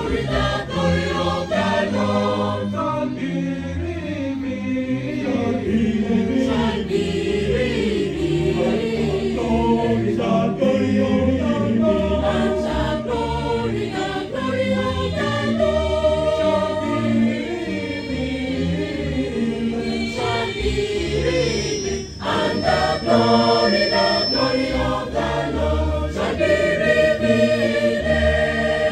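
Mixed choir of women's and men's voices singing a sacred choral piece in parts, with a brief drop in level about two-thirds of the way through before a louder passage.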